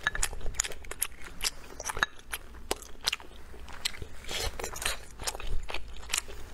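A person biting and chewing soft, sticky glutinous rice cake dipped in sauce, close to the microphone: a quick, uneven run of wet mouth clicks and smacks.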